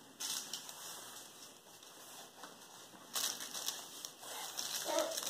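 Faint rustling and scraping as a plush rocking-giraffe toy is handled, with louder rustles just after the start and again about three seconds in.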